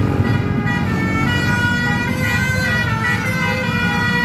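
Multi-tone telolet horn on a Basuri bus playing a tune of held notes that step up and down in pitch, over the low rumble of engines.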